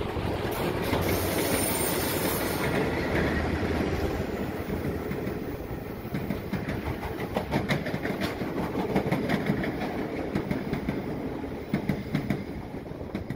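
T-class diesel-electric locomotives passing close by, followed by a long rake of metro train cars rolling past with a run of clicks as the wheels cross rail joints.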